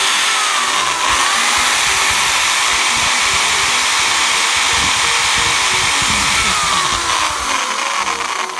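Bosch CSB 550 RE electric drill's brushed motor running steadily at speed, a loud even whirring hiss that switches on abruptly and eases off near the end: a test run of the repaired drill.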